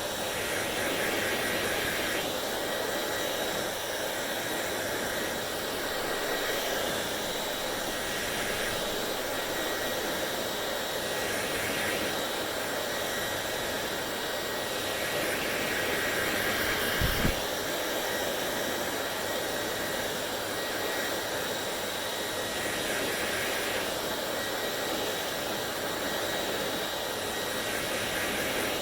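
Hair dryer blowing steadily, its rushing tone shifting slightly every couple of seconds. There is a brief thump about seventeen seconds in.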